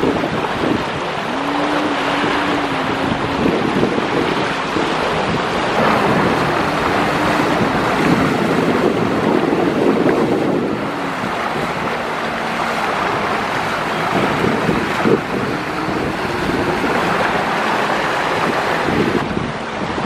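Motorboat engines running with water rushing along the hulls and wind buffeting the microphone; a low engine drone wavers in pitch now and then.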